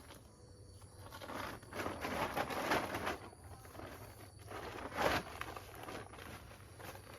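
Rustling and knocking of pineapples being loaded into a sack, in two spells: a longer one from about one to three seconds in and a short, louder one about five seconds in.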